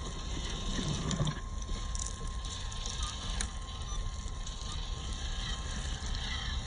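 WPL B36 6x6 RC truck crawling over dry leaves and twigs: the leaves crackle and crunch under its tyres, with a thin steady whine from its electric motor and gearbox. A low wind rumble on the microphone runs underneath.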